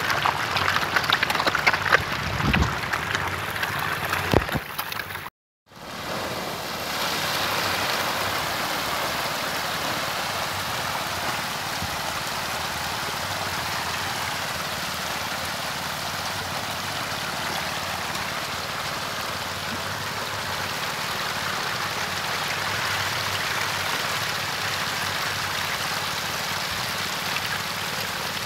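Thousands of hybrid magur catfish crowding at the pond surface to feed, splashing and thrashing in a dense, steady patter like heavy rain. A few sharper splashes stand out in the first seconds; the sound drops out for a moment about five seconds in, then carries on evenly.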